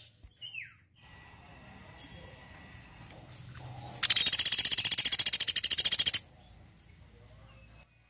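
Woodpecker calling: a loud, fast rattling trill of rapid high notes lasting about two seconds, starting about four seconds in, after a few faint chirps.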